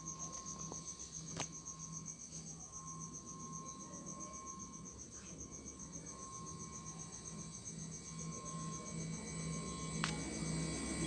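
Refrigerator giving a high, rapidly pulsing whistle over a steady lower tone and a low compressor hum. The uploader puts the whistle down to refrigerant gas choked in the compressor.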